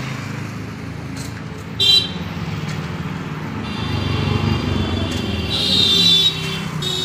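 Road traffic: passing vehicle engines rumble, with a short horn toot about two seconds in and horns sounding through the second half, loudest about six seconds in.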